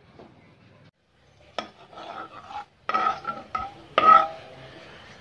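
A metal spoon stirring simmering bone broth in a metal cooking pot, knocking against the pot about four times with short metallic rings; the last knock is the loudest.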